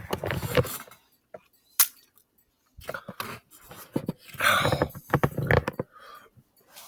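A man's mouth and throat sounds between belches: irregular short noisy bursts of breath and gulping, with a sharp click about two seconds in.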